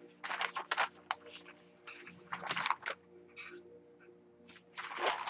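Sheets of printed paper rustling as pages are handled and leafed through: short, irregular rustles, the loudest near the end.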